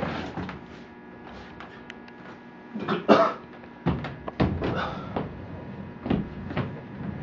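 A series of thumps, bumps and scuffs as a person scrambles about on a wooden floor and gets up, the loudest knock about three seconds in, over a steady electrical hum.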